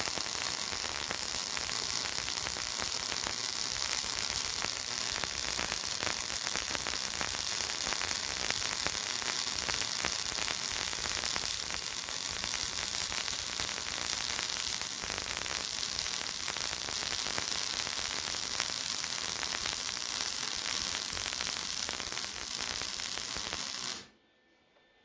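Welding arc on steel plate: a steady crackling hiss that cuts off suddenly about a second before the end.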